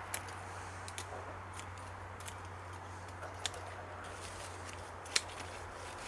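Victorinox scissors snipping through thin hazel sticks: a few scattered short, sharp clicks, the loudest about five seconds in.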